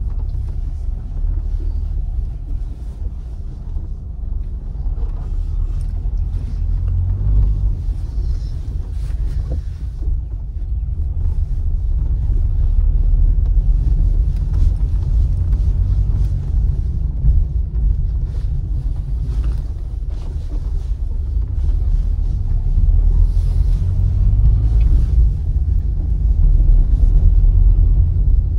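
In-cabin road noise of a first-generation Ford Figo driving slowly over a rough dirt road: a steady low rumble from the tyres and suspension, with scattered light knocks and rattles over the bumps. The engine itself is very quiet.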